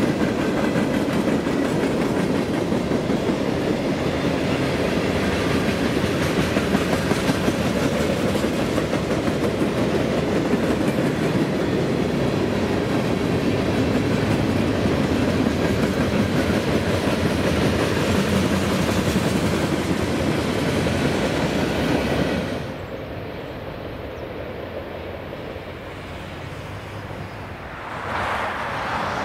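Freight cars of a CSX manifest train, tank cars and boxcars, rolling past close by, their steel wheels rumbling and clattering on the rails. About 22 seconds in the sound cuts to much quieter surroundings, and near the end an approaching train grows louder.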